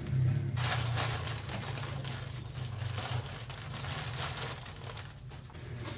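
Plastic snack sachets rustling and crinkling as they are handled and hung up, loudest about the first second, over a steady low hum.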